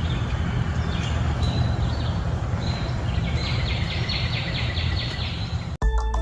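Distant thunder rumbling low and continuous, with a bird calling a quick run of repeated chirps, about four a second, in the second half. Music cuts in abruptly near the end.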